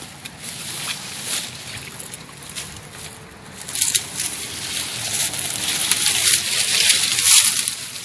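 Dry grass, stems and leaves rustling and crackling as someone pushes through dense undergrowth on foot, with vegetation brushing against the phone; it grows louder and busier about halfway through.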